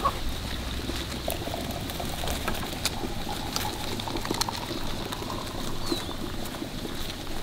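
Freshly boiled water poured from a metal kettle into a ceramic teapot, a steady stream running and splashing into the pot.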